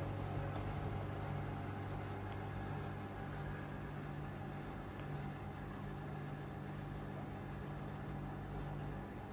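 Indesit W401 WF front-loading washing machine running, its motor turning the drum with a wet load of laundry: a steady hum with low tones.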